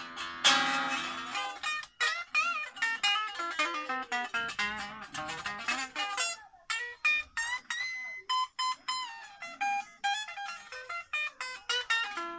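Epiphone Les Paul Special electric guitar played in a run of picked single-note licks with string bends and vibrato. It is being tried out with its bridge newly raised, and it rings out better than before.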